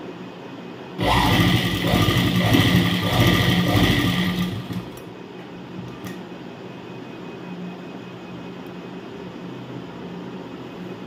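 Sewing machine stitching in one quick run of about three and a half seconds, starting suddenly about a second in and then stopping. A single click follows a little later, over a low steady hum.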